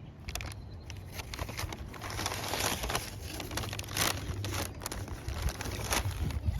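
Irregular crinkling and rustling, like plastic or paper being handled, with sharper crackles about four and six seconds in, over a low rumble of wind on the microphone.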